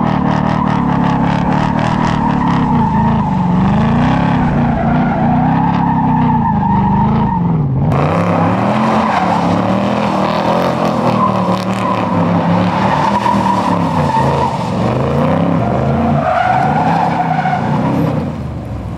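2024 Ford Mustang Dark Horse's 5.0-litre V8 revving up and down over and over while its rear tyres spin and squeal through a smoky drift. It gets quieter near the end.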